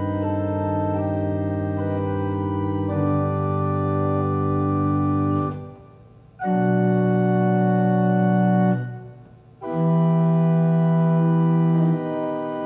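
Pipe organ playing slow, sustained chords. The sound breaks off twice, about five and a half and nine seconds in, dying away before the next chord comes in.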